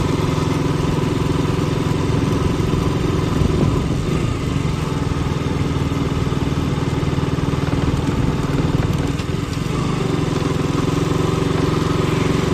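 An engine running steadily at an even speed, with a constant low hum and no change in pitch.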